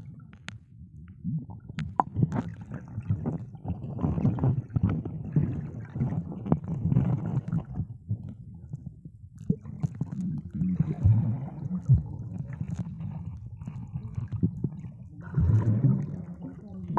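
Muffled underwater sound picked up by a submerged camera: a low rumbling of water with irregular gurgling surges, each lasting a second or more, and a few sharp knocks from the camera being handled.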